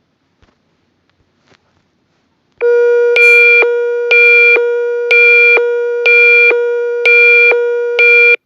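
Electronic emergency-alert attention tone, signalling that an alert message follows: a loud steady low tone with a higher beep pulsing on top about once a second, six times, then cutting off suddenly. A few faint clicks come before it.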